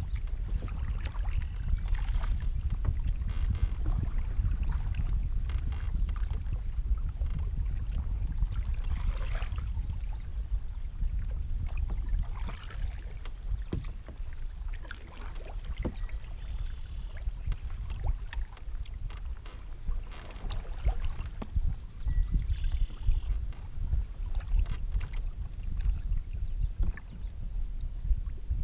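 Canoe paddles dipping and splashing in the water in irregular strokes, over a steady low rumble of wind on the microphone.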